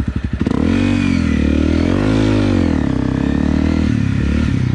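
Single-cylinder Honda motorcycle engine under throttle: it revs up about half a second in, eases off, climbs to a peak about two seconds in, then drops back to a steady run.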